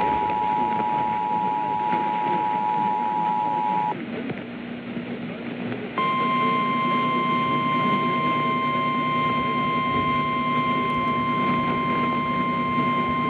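Emergency Alert System attention signal over radio hiss: a steady two-note tone for about four seconds. After a short gap with only hiss and hum, a single higher steady alert tone, the NOAA Weather Radio warning alarm, runs on, heralding a new weather warning.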